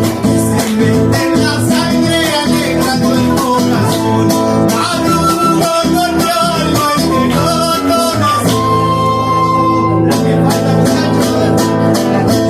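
Live Argentine folk music from a trio of acoustic guitars, bombo drum and transverse flute, with long held notes in the middle.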